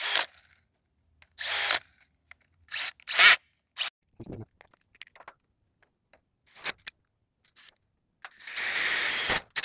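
Cordless drill run in several short bursts, then held in a steady run of about a second near the end, as it drills a hole in a steel gate rail; the bit, which the driller suspects is a wood bit, struggles to bite into the metal.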